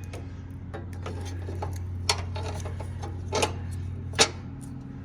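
A few sharp metallic clicks and taps from tools and mower parts being handled during reassembly, over a steady low hum.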